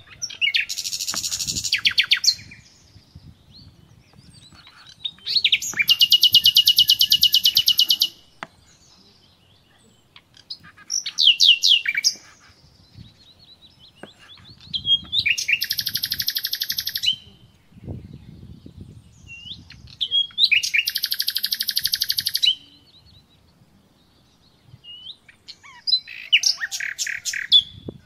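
A songbird sings six fast, trilling phrases, each one to three seconds long, about every five seconds. Soft knife cuts on a wooden cutting board sound faintly beneath them.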